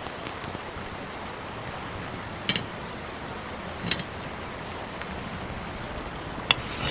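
Steady hiss of a smoking wood campfire, with three sharp clicks and knocks as the cast-iron grill grate is handled, the loudest near the end.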